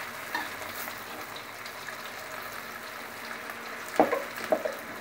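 Chopped shallots, garlic and chilies with shrimp paste sizzling steadily in oil in an aluminium wok, stirred with a metal spatula. The spatula clicks against the pan a few times near the end.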